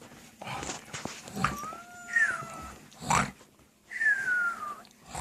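A dog whining: three high calls that slide down in pitch, with short rough noises between them.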